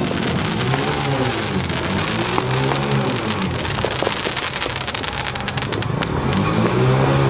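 Fireworks crackling and popping over an engine revving up and down again and again, a rise and fall about every two seconds.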